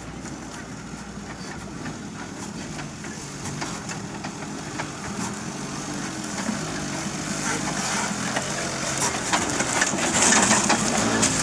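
Suzuki Samurai 4x4's engine running under load as it crawls through muddy ruts, growing steadily louder as it comes close, with scattered clicks and crackles from the tyres working over the rough ground.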